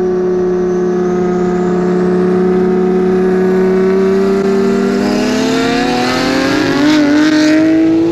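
A high-performance car engine held at steady revs, then revving up with its pitch climbing over the last three seconds, with a rising hiss on top.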